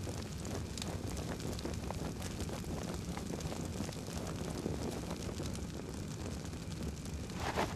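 A fire crackling over a low steady rumble, with many small pops and one louder crackle near the end.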